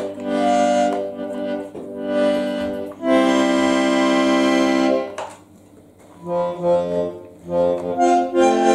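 Small button accordion (Schifferklavier) being played in chords with short breaks between phrases. A long held chord comes about three seconds in, then a brief pause, then shorter, quicker notes near the end.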